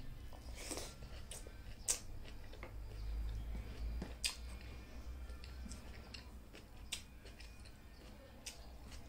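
Close-up mouth sounds of someone chewing a handful of rice and greens eaten by hand, with scattered wet clicks and smacks, a few of them sharper, and the fingers working rice on the plate.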